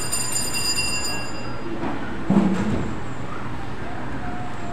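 Steady hum and rustle of a crowded chapel. A high-pitched ringing fades out in the first second and a half, and a single thump comes a little over two seconds in.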